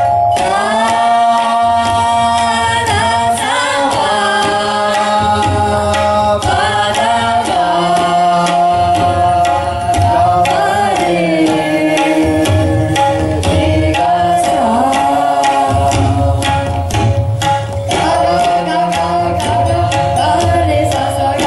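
Tabla playing: quick, crisp strokes on the right-hand drum with booming bass strokes from the left-hand bayan. Underneath runs a continuous melodic accompaniment of held notes with several sliding notes, the repeating lehra line over which a tabla solo is played.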